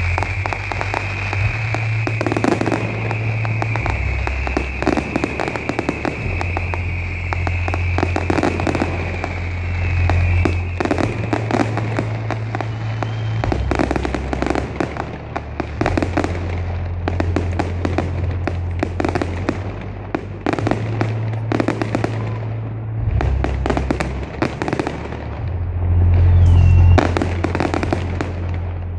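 Fireworks display: a rapid, unbroken string of bangs and crackles from aerial shells bursting, loudest near the end. Music plays underneath, its bass notes changing every couple of seconds.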